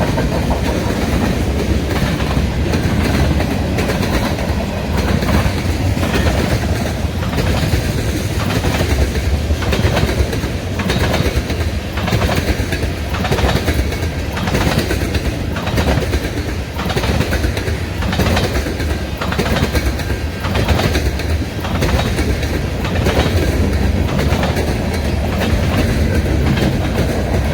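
Freight train rolling past, with a steady low rumble and repeated sharp wheel clacks as the wheels strike a half-inch crack in the rail.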